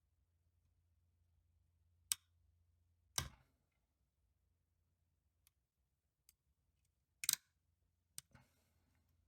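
Sharp, faint metal clicks from a pin-tumbler lock being picked: the pins dropping back inside the cylinder as tension is lost. About five clear clicks, the loudest about two, three and seven seconds in, with fainter ticks between.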